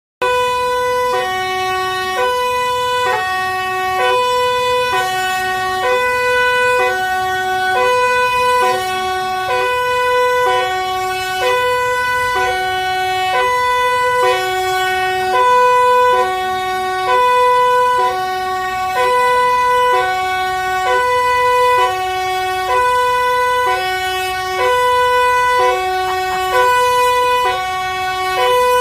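Telolet horn, a multi-tone musical air horn, playing an ambulance-siren tune: clean stepped notes switching in a short pattern, repeated over and over. It is used to ask traffic in a jam to make way.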